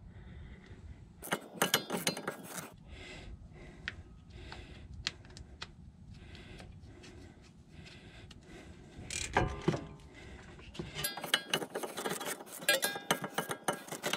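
Metal hand tools and brake parts clinking and clattering, with a burst of clicks early on, a single knock past the middle, and a stretch of rapid clicking near the end.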